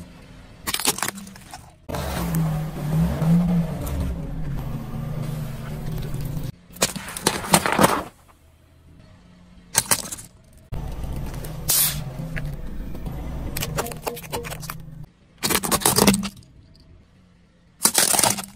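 Car tyre rolling slowly over objects on asphalt, in a string of short cut-together clips: the car's engine runs low under each one, broken by short, sharp crushing noises as the objects give way. The first is a wrapped lollipop flattened about a second in.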